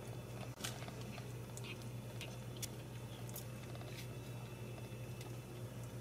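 Newborn Ragdoll kittens nursing at their mother: scattered soft clicks and smacks of suckling over a low steady hum.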